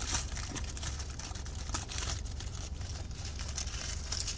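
Firework packaging being torn open and handled, with irregular small crinkles and crackles, over a steady low hum.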